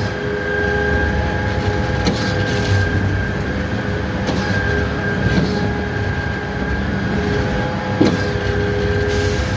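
Putzmeister concrete pump running through its pumping strokes: a steady loud machine drone with several constant whining tones and a few sharp knocks at uneven spacing.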